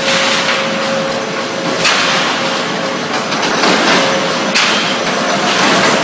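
Concrete mixer pump running at a steady pitch, with a sharp clack about every two and a half seconds.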